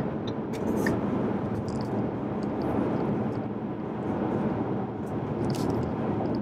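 Steady tyre and road noise with a low engine drone inside the cabin of a 2015 Ford Mustang EcoBoost holding about 59 mph on cruise control.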